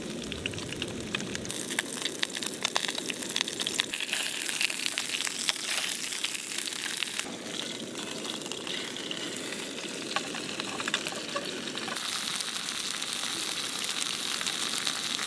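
Cutthroat trout frying in olive oil in a pan, sizzling steadily with many small crackles and pops.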